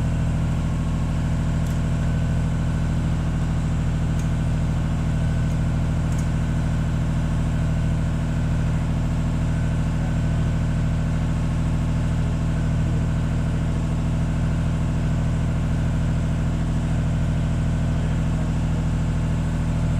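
An engine idling steadily at an even pitch, with a few faint clicks about two, four and six seconds in.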